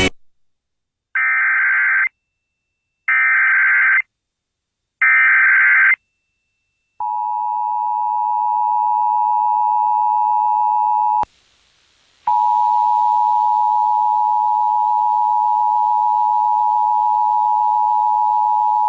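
Emergency Alert System tornado warning: three one-second bursts of SAME digital header tones, about a second apart, then the steady two-tone EAS attention signal. The attention signal breaks off about eleven seconds in and resumes a second later with a hiss behind it.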